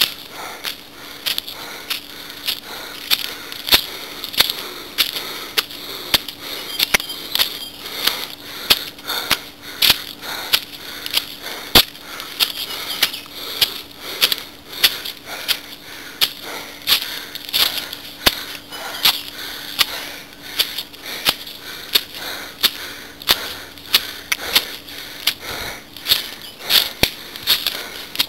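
Footsteps on stone steps and dry leaves, a sharp step about twice a second, over a steady high hiss.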